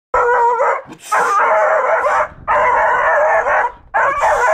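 7-month-old beagle baying at a mounted wild boar head: four loud, drawn-out bays of about a second each, with brief breaks between them.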